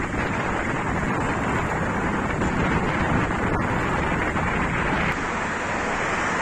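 Wind buffeting the microphone of a camera carried along on a moving bicycle: a steady rushing noise that eases slightly about five seconds in.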